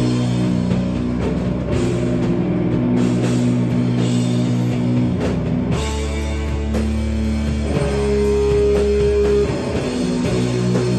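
Live heavy rock band playing: distorted guitars and bass holding long, slow chords over drums. About six seconds in the chord drops to a deep held note, and a single high guitar note rings for a second or so before the band returns to the first chord.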